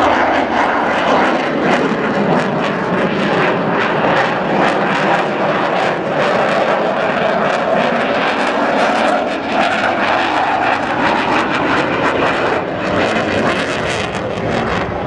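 Military aircraft flying past in an air display: loud, continuous engine noise with a slowly wavering tone and a crackling edge.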